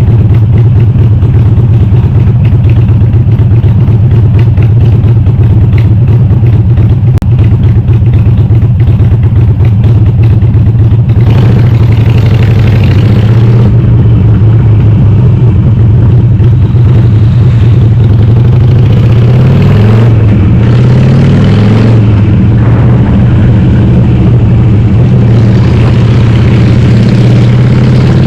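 Harley-Davidson Sportster's air-cooled V-twin, bored to 1200, running loud through a Cobra Speedster 909 exhaust with the baffles (dB killers) removed while the bike is ridden. The note holds steady at first, then from about 20 seconds in it rises and falls as the rider works the throttle and gears.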